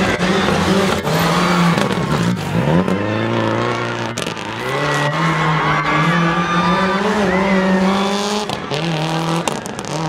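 Rally car engine revving hard as the car slides through a dirt corner, its pitch dropping sharply about two to three seconds in, then climbing again and holding high.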